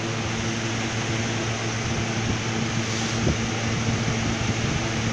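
Steady motor hum with an even hiss, of the kind an electric fan or air cooler makes, with a few faint handling knocks and rustles from about two seconds in.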